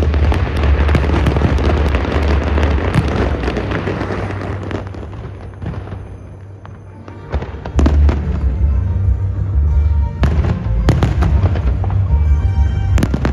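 Fireworks display going off with music: dense crackling and bangs that thin out to a lull in the middle, then heavy deep booms and sharp cracks start again about eight seconds in.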